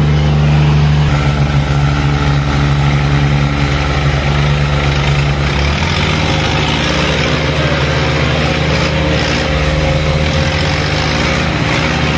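Diesel tractor engines running with a steady, unchanging note, the nearest a John Deere 5050D.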